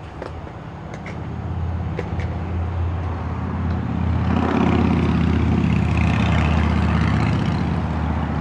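Delivery truck's engine running with a steady low drone that grows louder about four seconds in.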